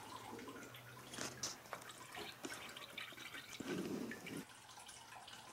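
Coolant dripping and trickling from the disconnected lower radiator hose into a drain pan, with scattered small clicks.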